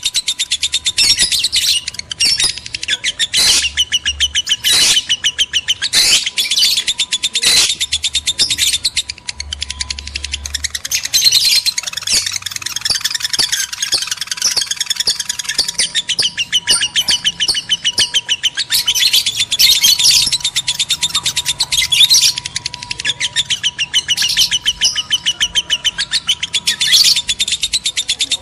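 Lovebirds, male and female in breeding condition, chattering nonstop in rapid, high-pitched chirps with sharper squawks mixed in.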